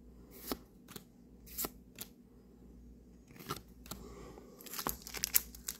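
Yu-Gi-Oh! trading cards being handled and flipped through by hand, with a few light card clicks and snaps spread out, then denser soft rustling and ticking near the end.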